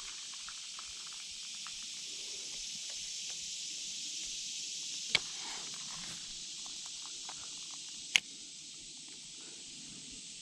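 A steady, high-pitched chorus of insects, with two sharp clicks about three seconds apart in the middle.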